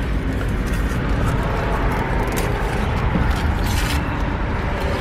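Steady low rumble of a car heard from inside the cabin, with a few short, sharp noises.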